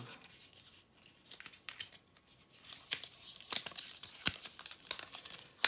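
Cardboard and plastic packaging being handled: crinkling and rustling with scattered light clicks and taps, busier in the second half, ending on one sharp tap.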